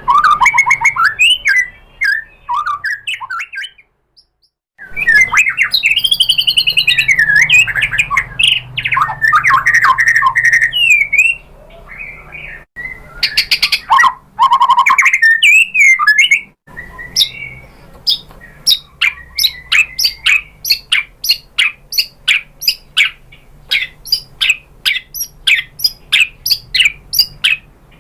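White-rumped shama (murai batu) singing a loud, varied song of whistled phrases that glide up and down in pitch, with a short pause a few seconds in. Near the end it repeats a quick series of short, sharp notes, about three a second.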